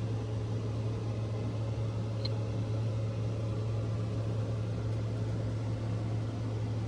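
A steady low machine hum with a faint even hiss, unchanging throughout.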